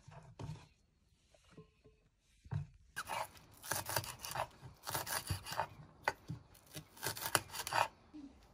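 Kitchen knife chopping a spring onion on a wooden chopping board: a few light knocks, then from about three seconds in a quick run of cuts through the stalks against the board, stopping near the end.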